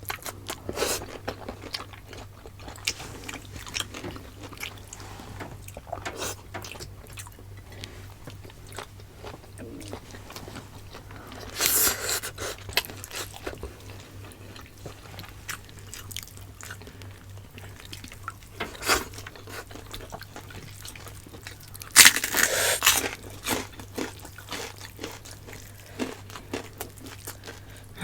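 Close-miked chewing and biting of pork adobo and pinakbet vegetables, wet mouth clicks throughout. There are two louder, crunchier bites, one about twelve seconds in and another a little past twenty-two seconds.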